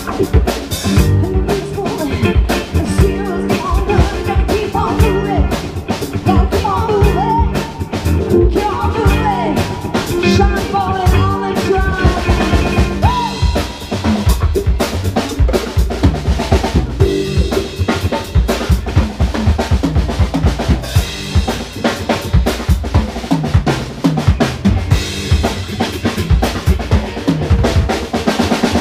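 Live band playing an instrumental funk-rock section: drum kit keeping a steady driving beat with electric guitar, bass and keyboard, and a lead line with bent notes through the middle.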